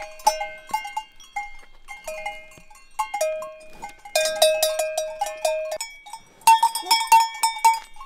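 Cowbells on cattle clanging irregularly as the animals move. Two spells of faster, louder clanging come about four and six and a half seconds in.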